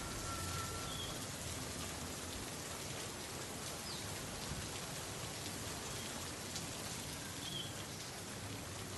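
Faint steady ambience: an even hiss like light rain, with a few faint short high chirps now and then.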